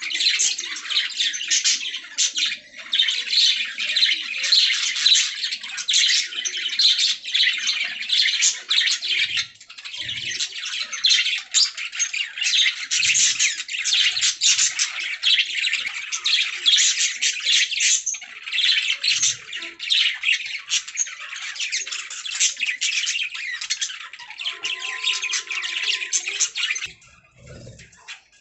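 A group of budgerigars chirping and chattering in a dense, continuous stream of short, squawky calls, thinning out near the end.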